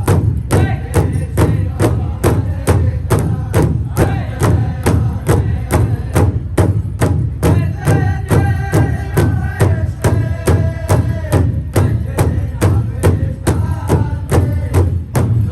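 Powwow drum group: a large hand drum struck in steady unison beats, about three a second, with a group of singers chanting over it.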